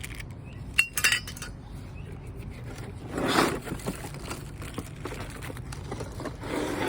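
Frame parts of a sports rebounder clinking against each other as they are taken out of the box, a few sharp clinks about a second in and more later, with a longer rustling scrape around the middle.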